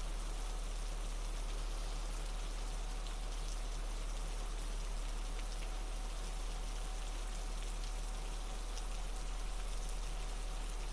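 Steady patter of recorded falling water, like rain, over a low steady hum; a faint held tone comes in about halfway through.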